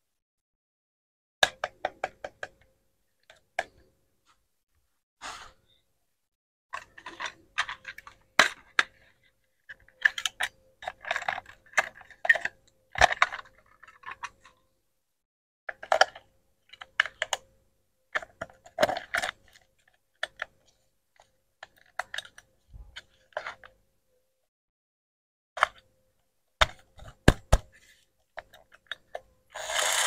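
Hard plastic clicks, taps and knocks from handling a toy iron, opening its battery compartment and fitting batteries in. They come in irregular clusters with brief quiet gaps.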